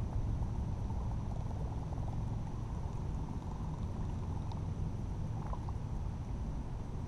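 Steady low rumble with a faint, steady high-pitched whine over it.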